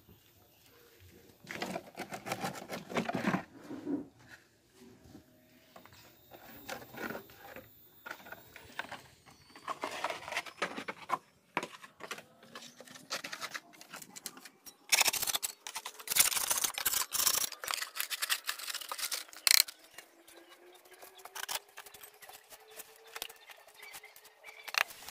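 Wooden mould boards and a thin sheet liner being pulled away from a freshly set cast-concrete planter: irregular scraping, rattling and knocking, with the loudest run of clatter about fifteen to eighteen seconds in.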